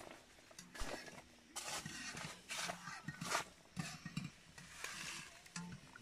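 Metal spoon stirring and scraping in an aluminium pot of noodle soup: irregular short scrapes and clinks against the pot.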